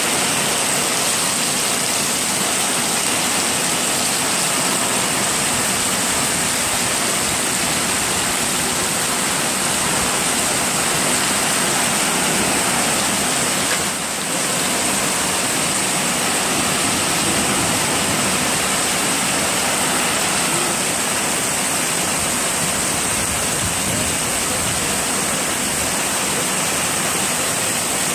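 Heavy downpour: rain falling steadily and hard onto a flooded street, with water streaming off the edge of an awning. The sound dips briefly about halfway through.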